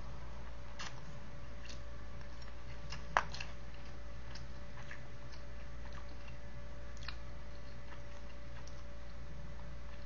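A man eating quietly: scattered small, irregular clicks of chewing and a metal fork on a disposable food tray, with one sharper click about three seconds in, over a steady room hum.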